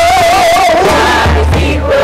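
A woman singing through a microphone and loudspeaker, holding a note with a wide vibrato for nearly a second, over a low bass accompaniment that comes in about halfway through.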